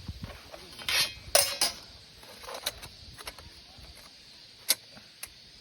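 Metal parts of a fire stand (Taras Boulba Assemble Fire Stand) knocking and clinking together as it is assembled by hand: a few sharp clinks at irregular intervals, the loudest near the end.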